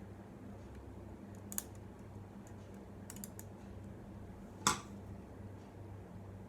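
Small metallic clicks and taps of a screwdriver and tiny screws as a laptop drive's mounting bracket is screwed onto an SSD, a few scattered clicks with the sharpest one about three-quarters of the way through, over a faint steady low hum.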